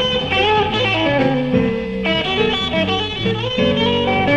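Live electric blues instrumental, an electric guitar playing to the fore over the band in a lo-fi club recording.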